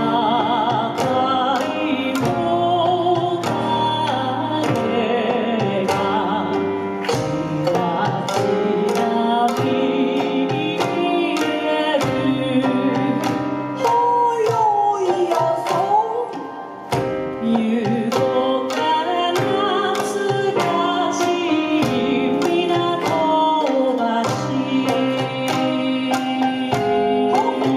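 A woman singing a melody with wavering vibrato into a microphone over a backing track of plucked strings and drums through PA speakers, with a short instrumental stretch in the middle.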